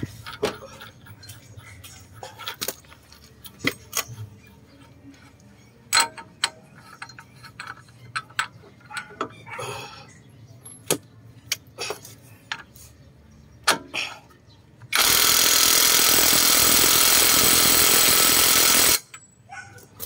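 Metal tools clinking and knocking now and then, then a cordless impact wrench runs steadily for about four seconds and stops abruptly, tightening the front axle hub nut.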